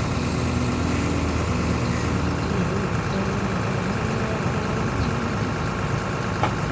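An engine running steadily at idle, with a single faint click near the end.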